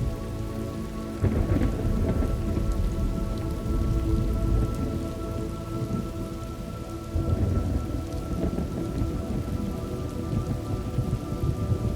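Steady rain falling, with rolls of thunder that swell about a second in and again around seven seconds.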